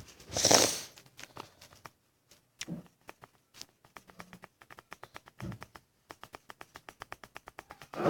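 Drawing tool making rapid, short strokes on paper: a run of quick even ticks, about six a second, in the second half. A short loud burst of noise comes about half a second in.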